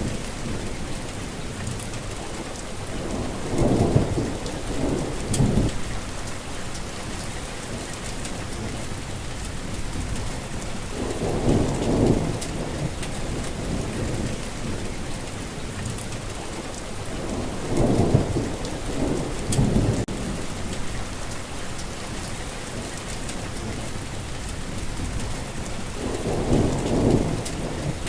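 Heavy rain falling steadily, with four deep rolls of thunder rumbling up over it about every seven or eight seconds.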